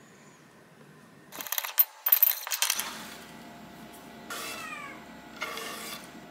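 A house cat meowing twice, about four and five and a half seconds in. Before that, about a second and a half in, comes a louder burst of crackling clicks and rattles lasting about a second.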